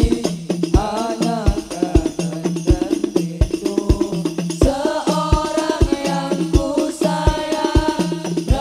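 Live hadrah sholawat music: rebana frame drums played by a group, with deep drum thumps keeping a steady beat under a sung melody.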